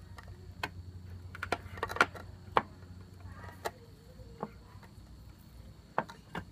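Irregular metallic clicks and light knocks of a 17 mm spanner working the bolt of a crankcase puller, pressing the crankshaft out of a Yamaha 135LC crankcase. About ten sharp ticks, several bunched together about two seconds in.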